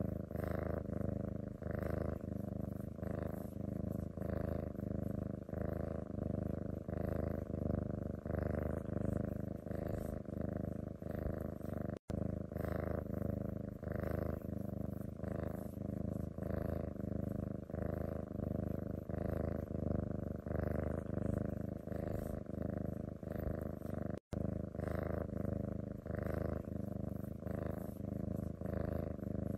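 Domestic cat purring steadily, the purr swelling and easing in a regular rhythm with each breath. The sound cuts out for an instant twice, about twelve and twenty-four seconds in.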